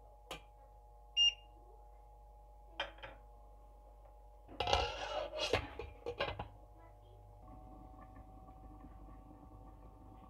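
A short electronic beep about a second in, a few clicks of a metal spatula against a stainless-steel pan, then a second-long clatter about halfway through and a few sharp clinks as a glass lid is set onto the pan. A steady hum of several tones runs underneath.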